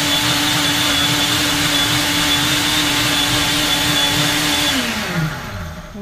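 Countertop blender running steadily, blending a thick green smoothie of leafy greens, shredded coconut and water. Near the end it is switched off and the motor winds down with a falling pitch.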